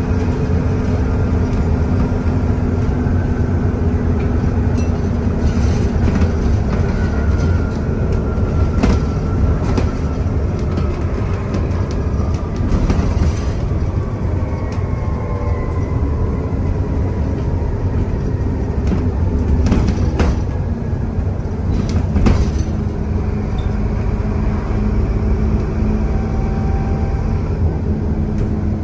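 Alexander Dennis Enviro400 double-decker bus under way: a steady engine drone with a faint turbocharger whistle that slowly glides up and down in pitch. Body rattles and knocks come through several times, sharpest about nine, twenty and twenty-two seconds in.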